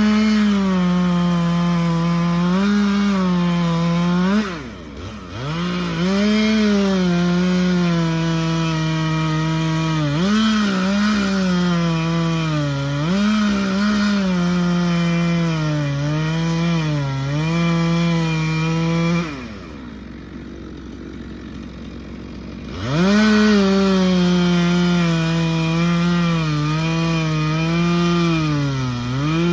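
Two-stroke chainsaw cutting into a tree trunk at full throttle, its pitch sagging and recovering as the chain bites into the wood. Twice it is let off to idle, briefly about five seconds in and for about three seconds near the twenty-second mark, then revved back up into the cut.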